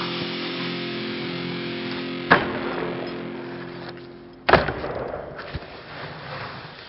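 A snowboard striking a metal pipe rail twice: a sharp clack about two seconds in and a louder bang about four and a half seconds in, followed by faint scraping. Background music fades out underneath.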